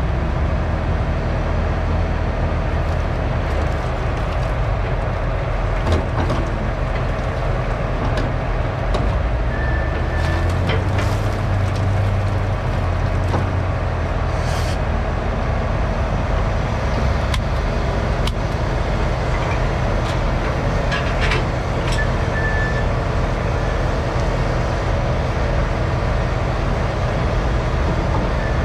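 Heavy diesel machinery running steadily as a log loader sets a log onto a log truck's load, with a few scattered knocks and clicks from the grapple and logs.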